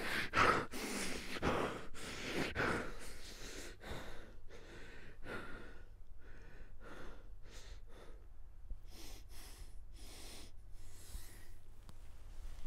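A man breathing heavily in ragged gasps, in distress, loudest in the first few seconds and then quieter and more spaced out.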